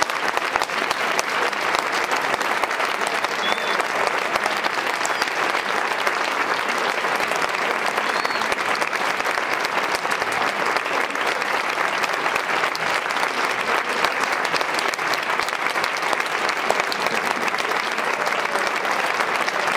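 Audience applauding steadily, a dense even clapping that holds for the whole stretch.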